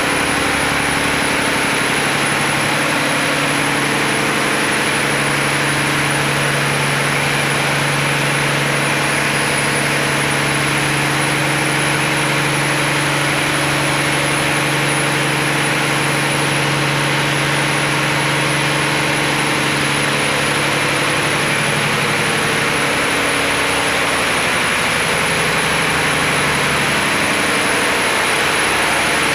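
Fishing boat's inboard engine running steadily, heard up close inside the engine room, with a constant low drone.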